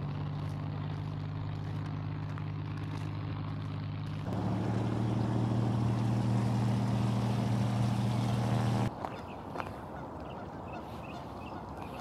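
A steady low mechanical hum with a fixed pitch. It gets louder and slightly higher about four seconds in, then stops abruptly near nine seconds. After that, birds call faintly over open-air background noise.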